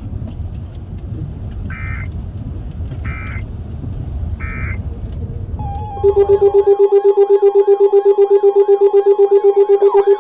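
Weather radio reception: low static carrying three short data bursts, a second or so apart, typical of the digital SAME header that opens an emergency alert. About six seconds in, a loud electronic alert tone starts, pulsing several times a second.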